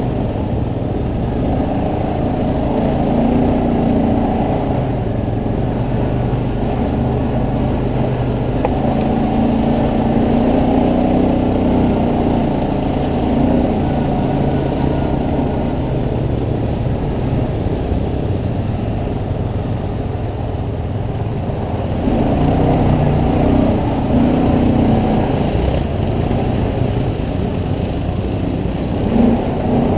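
ATV engine running under way, its pitch rising and falling as the revs change, over a steady low rumble.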